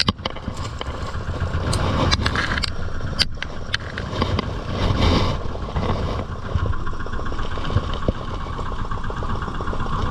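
An engine running steadily at idle, with a few sharp clicks or knocks over it near the start.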